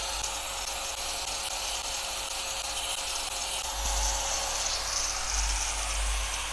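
Handheld angle grinder running with its cutting disc spinning free, a steady motor whine with a hiss; it gets louder about four seconds in.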